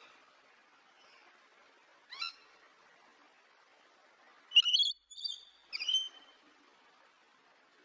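Rainbow lorikeet calling: one short call about two seconds in, then three louder calls close together a little past the middle, over a faint steady hiss.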